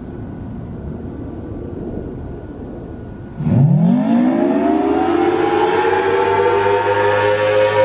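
A rushing rumble, then about three and a half seconds in the Federal Signal Thunderbolt 1000T siren winds up: its several-toned howl rises quickly in pitch and levels off loud and steady as the attack signal begins.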